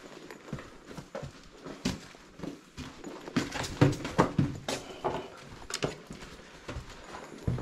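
Footsteps over a floor strewn with broken ceiling tiles and debris: irregular knocks and scrapes underfoot, coming thickest and loudest in the middle.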